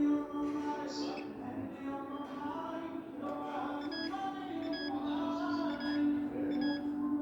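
Background music with a steady low held note under shifting melody, with a few short, high beeps about four, five and six and a half seconds in.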